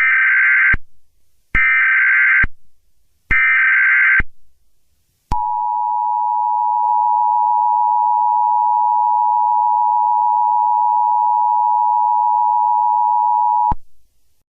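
Emergency Alert System tones: three short bursts of SAME header data, each under a second, then the two-tone EAS attention signal. The attention signal is held steady for about eight seconds, then cuts off suddenly. Together they mark the start of an emergency alert broadcast.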